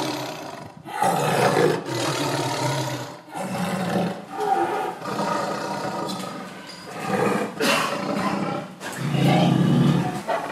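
Lions roaring, a run of deep calls about a second long each with short gaps between them.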